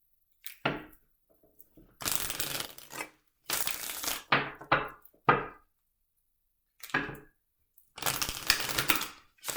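A deck of tarot cards being shuffled by hand, in a series of papery riffling bursts with short pauses between them; the longest burst comes near the end.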